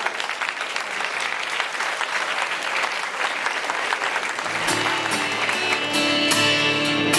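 Audience clapping, then about four and a half seconds in an acoustic guitar starts strumming chords in a steady rhythm.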